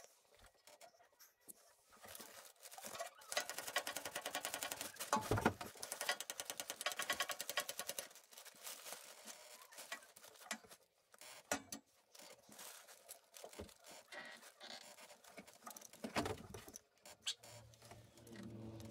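Sped-up hand-tool work on a compact tractor: a long run of rapid, even clicking with a loud knock partway through, then scattered clicks and knocks.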